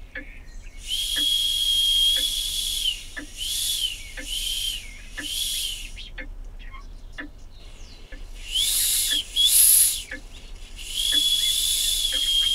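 Small brass steam whistle on a model steam boiler blown in uneven toots: a long blast, three short ones, two more in quick succession and another long one, each a steady shrill note with steam hiss. A faint regular ticking runs beneath, a little more than once a second.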